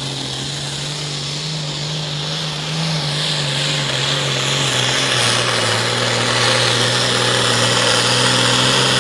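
Pro farm pulling tractor's turbocharged diesel engine running flat out while it drags a weight-transfer sled, a steady loud engine note with a high hiss over it. It gets louder about three seconds in, and its pitch sags a little near the middle as the sled loads it down.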